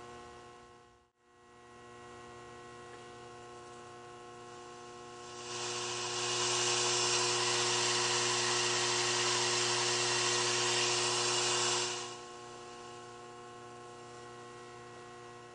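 Idle hum and hiss from a 1960 Bell & Howell Filmosound 399 projector's tube amplifier (6V6 output tubes) and speaker, with no music playing: a steady hum with several overtones under a hiss. It dips out briefly about a second in, and from about five seconds in the hiss and hum grow much louder for about six seconds, then drop back.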